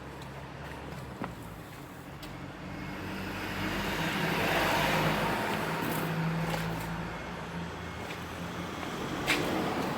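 A passing vehicle's noise swells and fades over a steady low hum, with a sharp click near the end.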